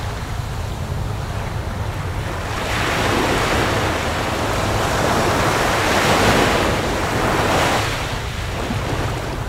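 Ocean surf: a wave swells louder about three seconds in and washes back down near the end, over a steady low rumble.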